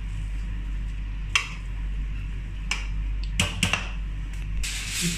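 A metal spoon clinks sharply against an aluminium cooking pot several times, with a quick cluster of clinks about three and a half seconds in, as cooked biryani rice is turned. The rice scrapes against the pot near the end, over a steady low hum.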